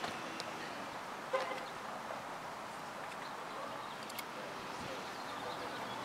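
Outdoor ambience: a steady background hiss, with a short sound about a second and a half in and a faint click about four seconds in.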